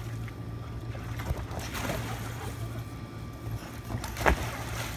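Water sloshing and splashing in an inflatable paddling pool as a German Shepherd moves through it, with one sharp splash about four seconds in as the dog leaps out over the edge. A steady low hum runs underneath.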